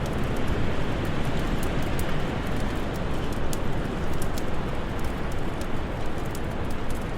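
Steady low rush of winter wind, with the small sharp snaps and pops of a crackling fire scattered irregularly over it.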